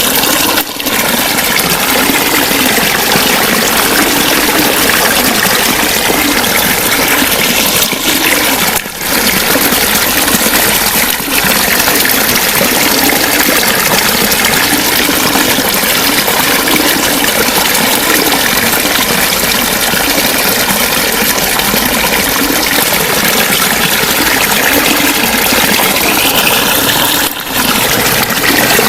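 Water flowing and gurgling steadily, loud and close, with a few brief dips in level.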